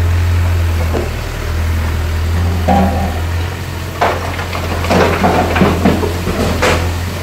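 Diesel engine of a Volvo EW60C wheeled excavator running steadily. Several sharp knocks and clatter come from about four seconds in.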